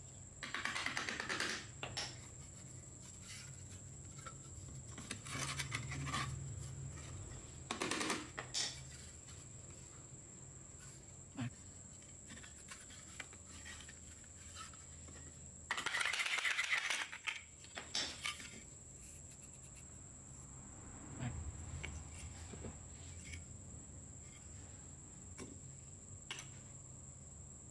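Irregular metallic knocks, clinks and scraping as the corroded metal housing of an old Hitachi G13S1 angle grinder is handled and struck on a rusty block while it is taken apart. Several louder clattering spells stand out, the loudest just past the middle.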